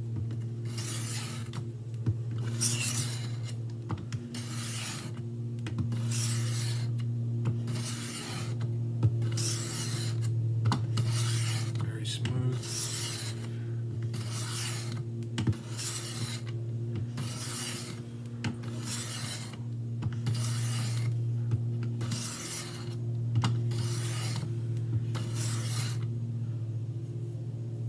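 Knife edge being drawn across a Work Sharp Benchstone diamond sharpening plate, alternating sides with each stroke. A steady rhythm of rasping strokes, about one a second, stops near the end.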